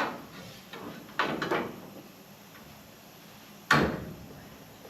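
Replacement sheet-metal panel knocking and clattering against the van body as it is test-fitted into place: a sharp knock at the start, some lighter clatter about a second in, and a loud knock near the end.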